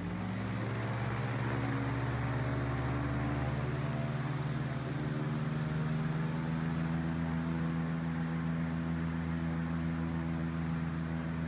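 Airboat engine and propeller rising in pitch and loudness over the first second or so, then running steadily as the boat travels across the marsh.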